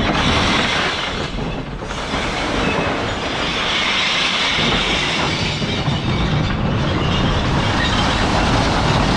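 Loud, continuous clatter of glass bottles and jars: wheelie bins full of glass rumbling over tarmac and being tipped into the hopper of a Dennis Elite refuse truck, the glass crashing down into the well. The speaker calls it very noisy.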